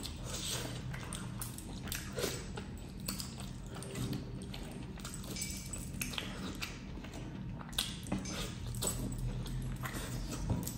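Close-miked eating with the fingers: chewing, lip-smacking and sucking at a curry-soaked chicken leg piece, in irregular wet clicks and smacks over a low steady hum.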